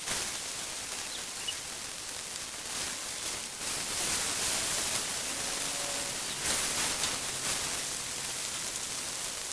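Salmon fillets sizzling on a hot Blackstone flat-top griddle: a steady hiss with light crackling, swelling a little about halfway through.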